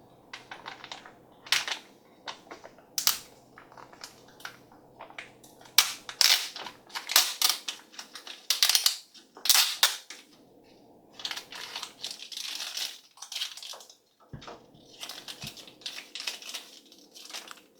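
Plastic toy packaging crinkling, crackling and tearing in irregular clusters as a Num Noms series 2 surprise pack is opened by hand.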